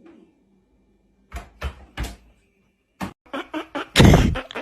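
A series of knocks and thumps: three sharp knocks, then a quick run of taps and one loud thump near the end.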